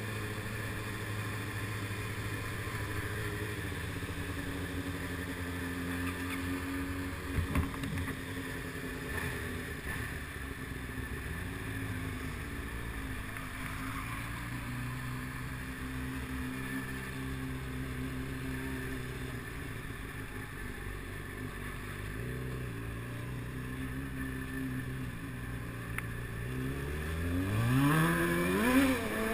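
Motorcycle engine heard from on board, running at low revs at slow town speed, with a brief thump about seven seconds in; near the end the revs climb as the bike accelerates.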